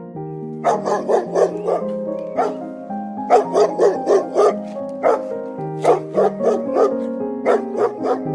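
Dog barking repeatedly, sometimes single barks and sometimes quick runs of several, over background music with held notes.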